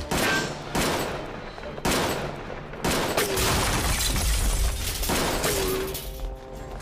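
A string of gunshots at uneven intervals in a gunfight, with a denser volley of shots and crashing in the middle.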